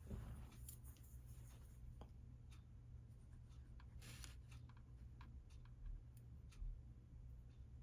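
Near silence: faint scattered clicks and rustles of small craft pieces being handled, with a stronger rustle about four seconds in, over a low steady hum.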